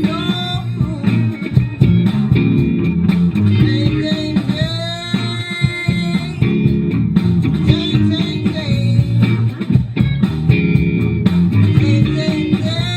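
Band playing a blues-soul groove led by guitar over a bass guitar line.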